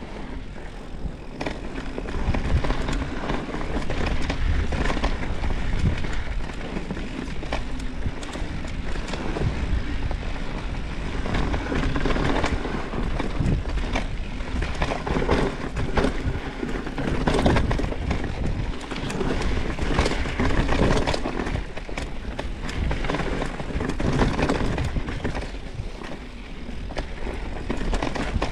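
Mountain bike riding over a dirt and rock trail: tyres running on the ground with steady rumble and frequent rattles and knocks from the bike over rough terrain.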